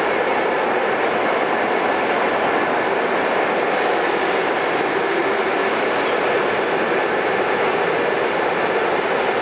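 Westinghouse-Amrail R68 subway car running through a tunnel, heard from inside the car: a steady loud noise of wheels on rail and traction motors, with a faint brief high squeal about six seconds in.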